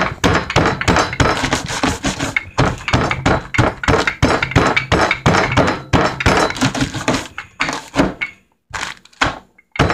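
Wooden rolling pin striking raw walnuts sealed in doubled plastic zip bags on a counter, crushing them finely: rapid repeated thuds, several a second, with the nuts breaking under the blows and a brief pause near the end.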